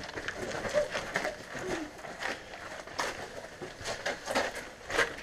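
Footsteps on a sandy, gravelly trail: irregular footfalls, roughly one to two a second.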